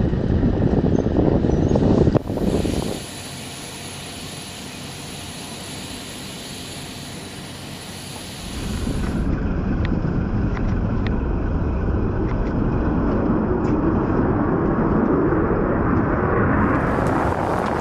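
Loud, steady rushing noise of aircraft engines. From about three to eight seconds in it drops to a quieter steady hum, then the rush comes back.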